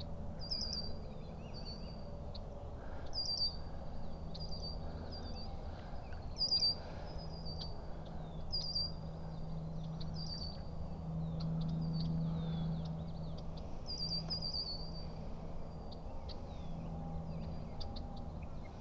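Small birds chirping, short high notes repeated about once a second, over a low steady hum.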